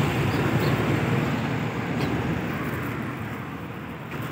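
Steady city street traffic noise, easing off slightly toward the end.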